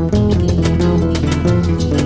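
Background music with a steady beat and layered melodic notes.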